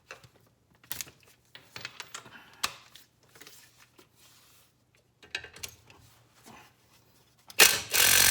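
Metal tools and sockets clicking and clinking, then near the end a loud burst of an impact wrench, used to try to break a fastener loose on the car's front axle assembly.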